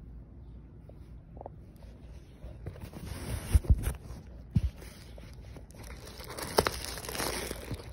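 Packaging being handled and rustled, with a few sharp knocks, starting a couple of seconds in.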